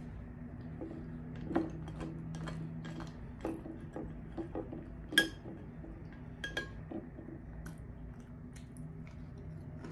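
Metal spoon clinking and scraping in a glass bowl of cereal and milk while scooping spoonfuls, with scattered small clicks. The loudest is a sharp, ringing clink about five seconds in, and another comes about a second later.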